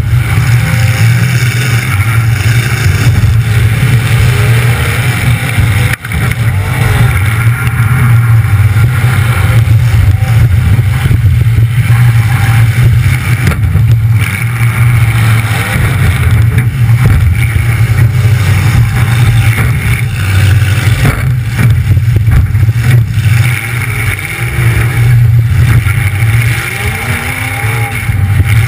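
Demolition derby car's engine running loud through short open exhaust stacks sticking up through the hood, heard close from on board. It makes a steady low drone.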